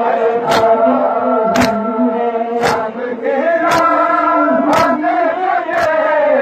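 Large group of men chanting a Muharram mourning lament together. A sharp slap of hands striking chests in unison (matam) keeps time about once a second.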